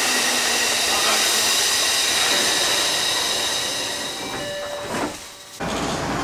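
Tokyo Metro Chiyoda Line train at a station stop with its doors closing: a steady hiss of train and station noise with faint high tones, fading about four seconds in, then breaking off abruptly.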